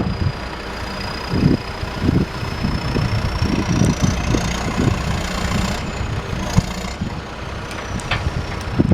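John Deere 310SJ backhoe's diesel engine running steadily, with a thin high whine that rises in pitch in the middle and drops back near the end.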